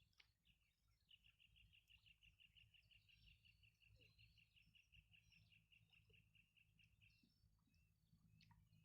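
Faint bird call in the open: a rapid run of identical high notes, about five a second, lasting some six seconds, with a few scattered chirps around it over a low background rumble.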